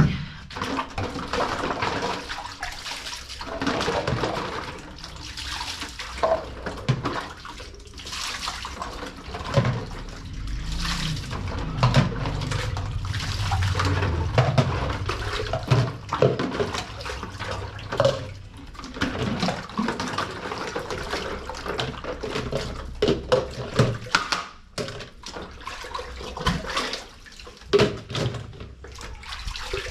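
Dishes and cooking utensils being washed by hand: water splashing and pouring, with repeated clinks and knocks of utensils and a pot against each other.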